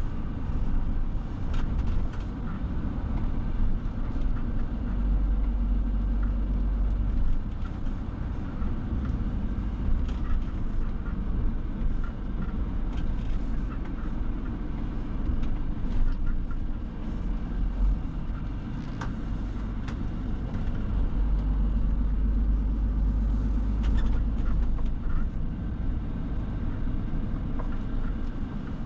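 Scania Super 500 S truck's 13-litre six-cylinder diesel heard from inside the cab while driving: a steady low engine drone with road and tyre noise, and a few faint clicks and knocks.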